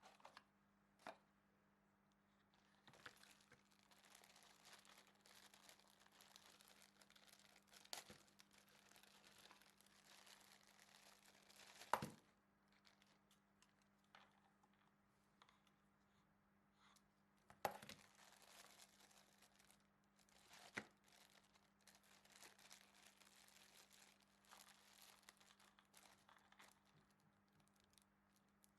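Packaging being handled: rustling and crinkling plastic or paper wrapping, broken by several sharp knocks, the loudest about twelve seconds in.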